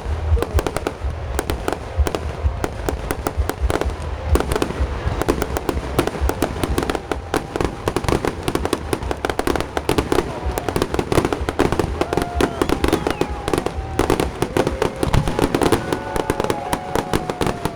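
Fireworks display at close range: a dense, continuous barrage of rapid bangs and crackling pops, many per second.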